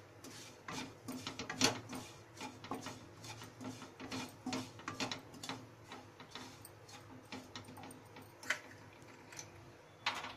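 Wooden spatula scraping and tapping against a non-stick kadhai while stirring wheat flour being roasted in ghee. It makes a run of irregular clicks and scrapes, several a second, that thin out after about halfway, with a sharper knock near the end.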